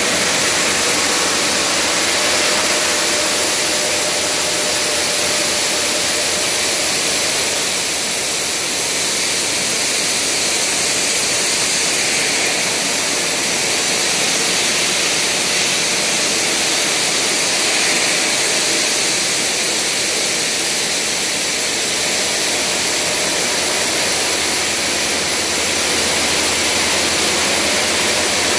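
Large diamond saw blade of a WANLONG QSQ-2200/2500 block cutting machine cutting through a stone block under cooling water spray: a loud, steady hiss and grind that holds unchanged throughout.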